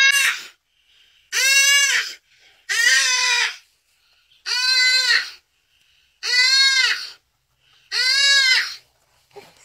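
A wounded deer bleating in distress while it is eaten alive: six high, pitched cries, each under a second and rising then falling in pitch, about one every second and a half.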